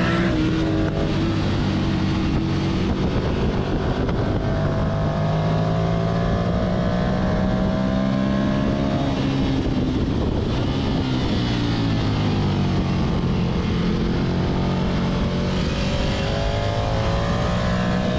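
Ducati Monster 659's air-cooled V-twin engine at track speed, recorded on the bike, with heavy wind noise over it. The engine note rises under acceleration, falls as the bike slows for a corner about halfway through, then climbs again.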